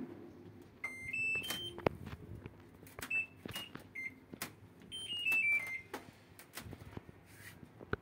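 LG TurboDrum top-load washing machine's control panel beeping: a rising three-note chime as it powers on, single short key beeps as buttons are pressed, then a short falling run of tones about five seconds in, with light clicks of the buttons. These are separate key tones with the lid-switch sensor bypassed, not a nonstop error beep.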